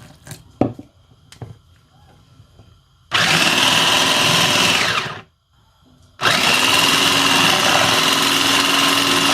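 Electric blender motor running in two bursts, one of about two seconds and one of over three seconds, with a short pause between them, blending pancake batter. A few light knocks come before it.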